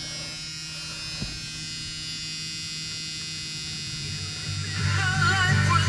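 A steady electrical buzz with a thin whine, then about four and a half seconds in, music starts playing from the van's stereo through newly installed four-way door speakers, quickly growing louder.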